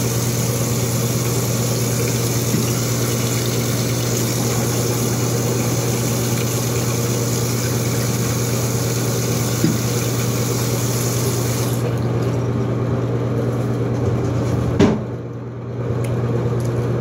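A steady low hum under a rushing hiss. The hiss stops about 12 seconds in, and a single sharp click comes just before 15 seconds.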